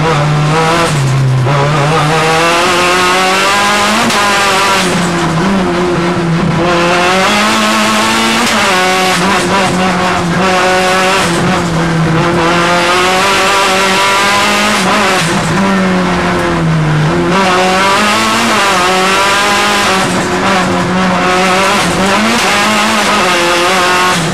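Audi A3 hillclimb car's engine heard from inside the cabin, driven hard, its note climbing and dropping over and over through the gears.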